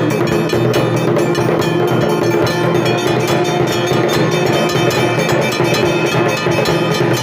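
Hindu temple bells rung rapidly and continuously: a dense, steady clanging of many strikes over layered ringing tones, with a steady held tone underneath.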